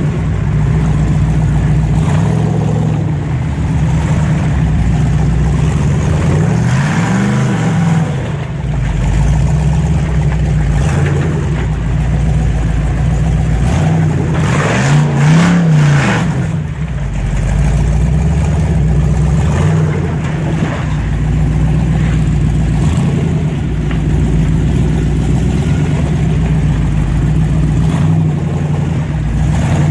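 Flat-fender Jeep's engine working under load as it rock crawls up a ledge, running steadily and revving up and back down twice, about seven seconds in and again around fifteen seconds.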